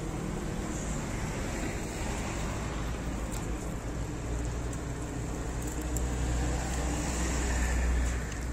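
Street traffic noise: a steady hum of road traffic, with a motor vehicle's low rumble swelling louder near the end as it passes close.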